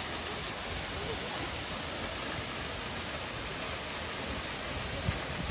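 Steady rushing roar of a waterfall, Minoh Falls, with a short knock near the end.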